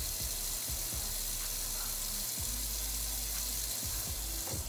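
Kitchen tap running steadily, a constant hiss of water, with a few faint knocks.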